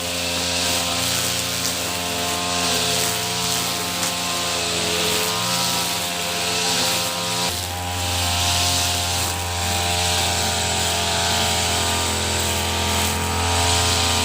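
Petrol brush cutter engine running steadily at working speed, its low tone shifting slightly about halfway through, with a hiss that swells and fades roughly once a second.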